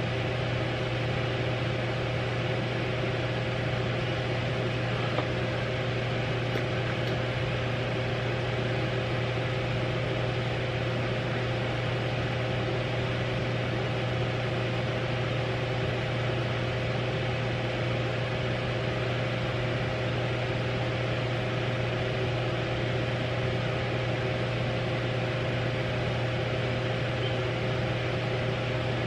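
Steady mechanical hum with a low drone, a couple of faint steady tones above it and an even hiss, unchanging throughout.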